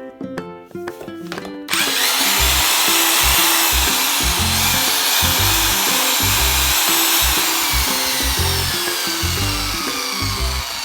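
A power tool's electric motor starts about two seconds in and runs loudly and continuously, its whine slowly falling in pitch. Background music plays under it.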